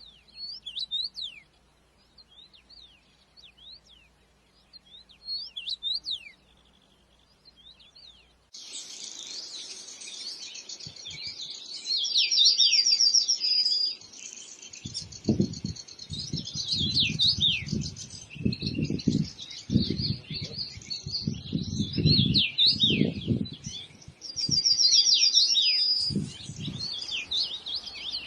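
Songbirds singing: scattered quick chirps and whistles, then about eight seconds in a sudden change to a louder, fuller chorus with rapid trills. In the second half, bursts of low rumble sit under the birdsong.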